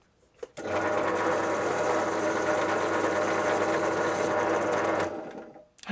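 Bench pillar drill switched on, its motor running steadily with a wire brush wheel spinning in the chuck. About five seconds in it is switched off and the sound dies away.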